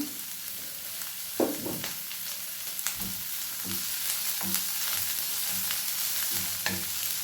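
Chopped onions and curry leaves sizzling steadily in coconut oil in a pan, with a spoon stirring and knocking against the pan several times.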